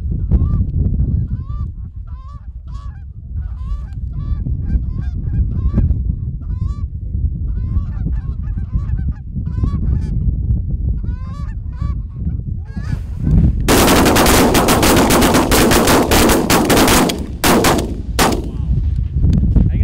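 Geese honking again and again over a low wind rumble on the microphone, then, about fourteen seconds in, a rapid volley of shotgun fire from several guns at once lasting about three and a half seconds, followed by two more single shots.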